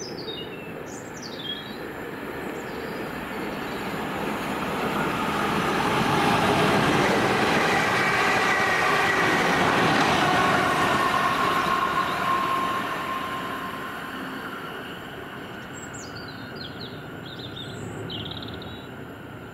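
Passenger train passing through the station at speed: a rushing rumble of wheels on rail that builds, peaks midway with a faint high whine, and fades away.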